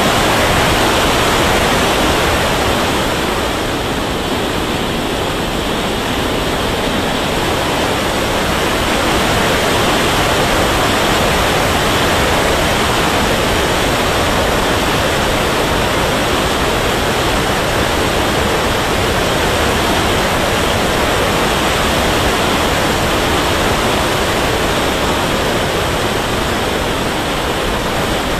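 Steady, loud rush of air and jet noise picked up by a camera riding on a radio-controlled turbine jet model in flight, dipping slightly in level about four seconds in.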